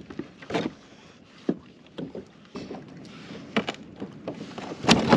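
Scattered knocks, rustles and water splashing of a live bait fish and fishing gear being handled aboard a fishing kayak, growing louder and busier near the end.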